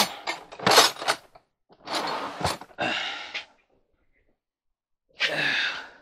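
A person breathing out heavily several times: loud breathy exhales, the last coming after a pause of about two seconds.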